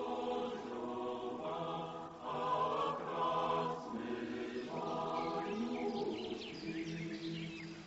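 A choir singing held chords in phrases of a second or two. Near the end the singing thins and birds chirp high above it.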